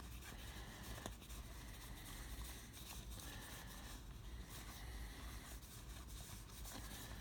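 Faint, soft rustling and light clicks of baseball cards being handled and flipped through one by one.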